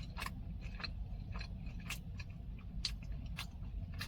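Close-up chewing of a mouthful of Burger King bacon melt burger, with irregular crisp crunches and mouth clicks from the crispy-edged patty.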